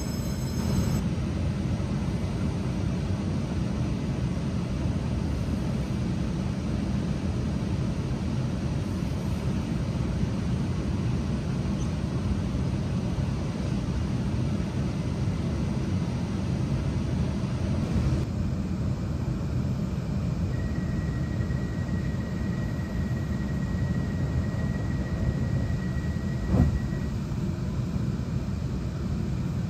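Passenger train running: a steady low rumble throughout. A faint high steady tone sounds for several seconds past the middle, and a single sharp knock comes near the end.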